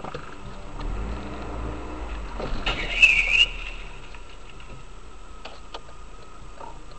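Dashcam audio of a car hitting a person with a bicycle on a crossing: steady low hum of the car, then about two and a half seconds in a few knocks followed by a brief high squeal, the loudest sound.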